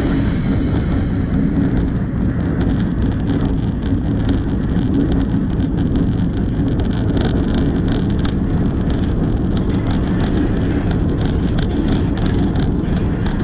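Diesel locomotive running as it rolls slowly along the track: a steady low rumble with wind buffeting the microphone. From about four seconds in, a patter of light clicks and rattles plays over it.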